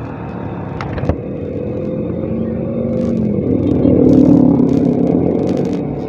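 Motorcycle engine running at low road speed with traffic noise; an engine note swells to its loudest about four seconds in as an oncoming motorcycle passes close by, then fades. A short click about a second in.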